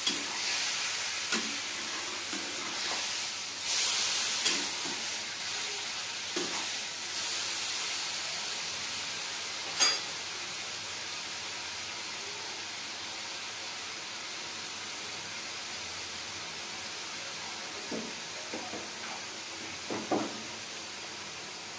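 Mushrooms sizzling steadily in a hot wok, with a metal spatula scraping and knocking against the pan over the first several seconds. There is a sharp knock about ten seconds in and a few lighter knocks near the end.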